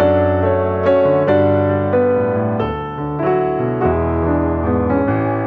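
Background music: a melodic piano piece, notes struck in a steady flowing pattern.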